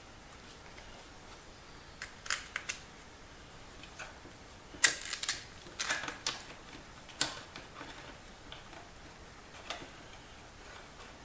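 Irregular sharp clicks and clacks of hard objects being handled, a few in quick succession about two seconds in, the loudest about five seconds in, more around six and seven seconds and a last one near the end.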